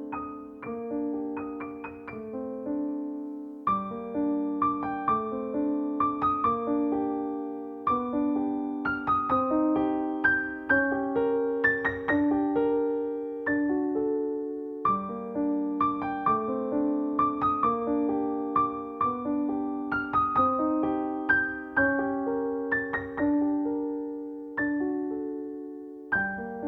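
Solo piano music: a slow, gentle melody of struck notes that ring and fade, with a repeating phrase.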